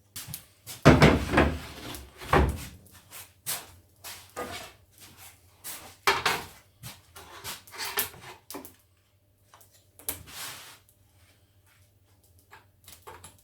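Wooden jig parts being handled, slid and knocked together on a workbench: a string of irregular knocks and short scrapes, loudest about a second in, with a quieter stretch near the end.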